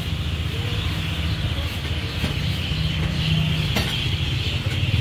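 Steady low engine hum with a steady hiss above it, and a single sharp click a little before four seconds in.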